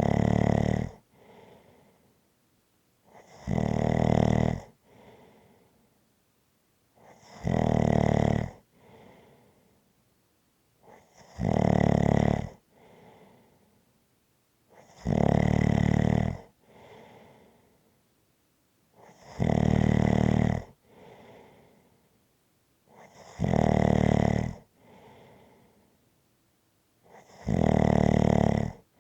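Steady snoring: a loud snore about every four seconds, each lasting about a second and followed by a much softer breath, eight snores in all.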